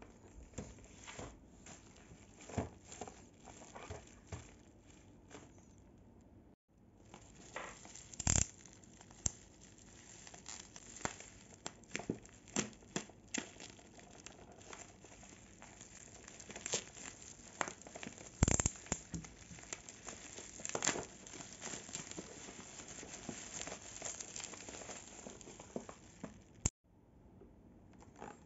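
Plastic bubble wrap crinkling and crackling as it is pulled off a boxed figure by hand, with many small sharp crackles and a few louder snaps.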